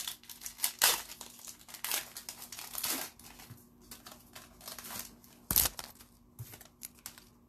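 Wrapper of an Upper Deck Series Two hockey card pack being torn open and crinkled, a run of irregular crackles, with one sharper thump about five and a half seconds in.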